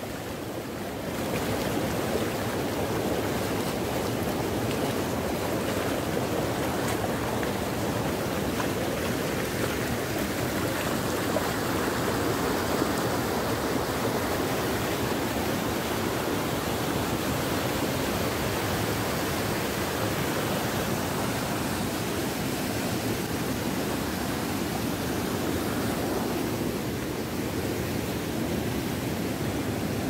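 Wild, rain-swollen stream pouring over rock in a small waterfall: a loud, steady rush of churning whitewater.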